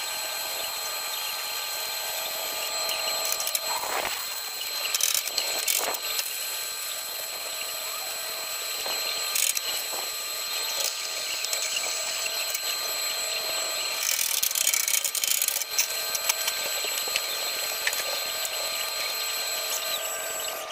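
Stick-welding arc crackling and sizzling steadily as an electrode lays a bead around the base of a steel pipe on a steel plate, with a steady high whine and scattered sharp crackles; it stops near the end.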